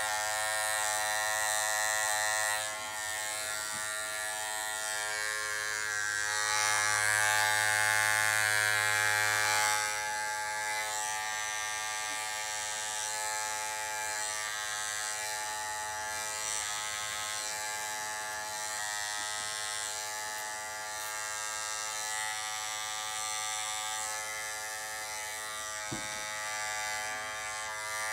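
Electric hair clippers running with a steady buzzing hum as they cut short hair. The hum is louder for the first couple of seconds and again from about six to ten seconds in.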